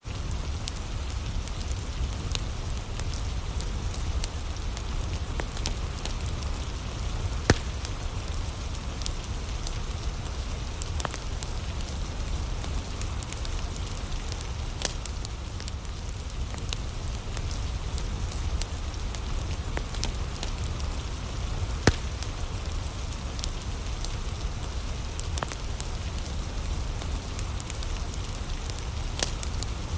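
Wood fire crackling in a fireplace, with scattered sharp snaps and two louder pops, over a steady patter of rain.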